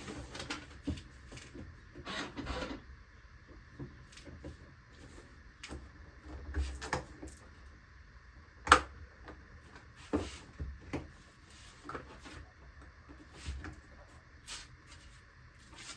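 Handling noises: scattered light clicks, knocks and rubbing of hands working on parts, with one sharper click near the middle.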